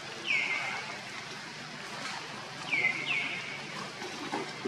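Three short, high chirping animal calls, each sliding down in pitch and then holding briefly: one right at the start and two close together about three seconds in. They sound over a steady background hiss, with a small knock near the end.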